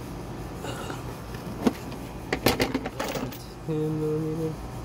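Metal hand tools clinking and knocking: one sharp click, then a quick cluster of clicks and knocks a second later. This is followed by a short steady hum of just under a second near the end.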